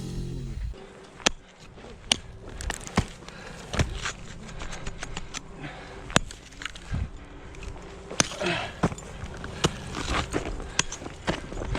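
Ice-climbing tools and crampons striking ice: a run of sharp, irregular knocks about a second apart.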